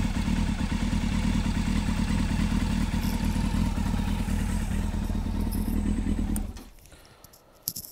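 Yamaha FZS600 Fazer's carbureted 600 cc inline-four idling steadily, then shut off about six and a half seconds in. A short knock comes near the end.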